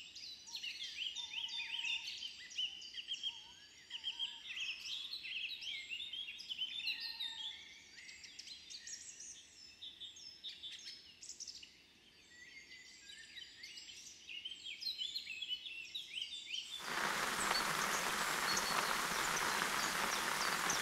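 Several songbirds singing at once, many short high chirps and trills overlapping, with a few lower whistled notes. About seventeen seconds in it cuts suddenly to a steady hiss of falling rain.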